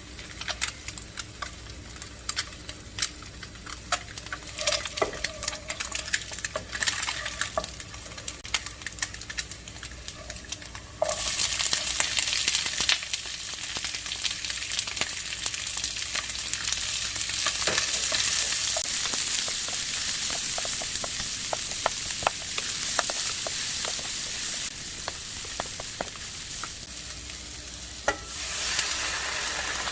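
Food frying in a pan while being stirred, with a utensil clicking and scraping against the pan. About eleven seconds in, a loud sizzle starts suddenly and keeps going under the stirring, easing a little near the end before picking up again.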